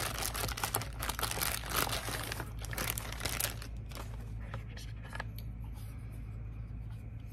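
Clear plastic bag crinkling and rustling as a radio's control head is pulled out of it. The crackling is dense for the first three seconds or so, thins out, and stops about five seconds in.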